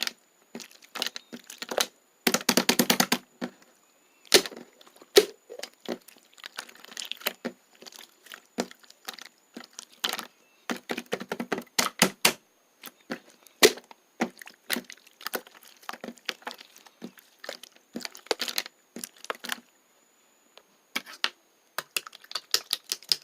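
Pearl slime being squeezed and worked by hand, making irregular crisp clicks and pops, with a fast run of clicks about two seconds in.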